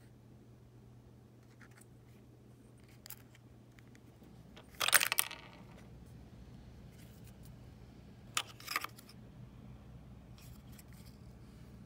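Small hard parts of a disassembled Apple TV clinking and clattering as they are handled on a tabletop: a loud rattling cluster of clicks about five seconds in, then two shorter clicks a few seconds later.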